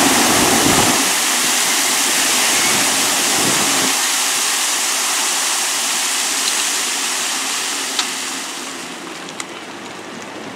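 Water jetting from a broken water main: a loud, steady rushing spray that dies away over the last couple of seconds as the valve is turned shut. Two short sharp clicks come near the end.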